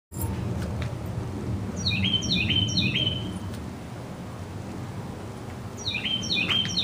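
A songbird singing outdoors: a quick phrase of three repeated chirping notes about two seconds in, repeated near the end, over a steady low background hum of outdoor noise.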